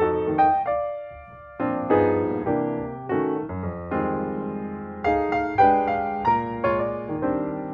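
Background piano music: a melody of struck notes and chords, each note fading after it is played, with a brief pause about a second in.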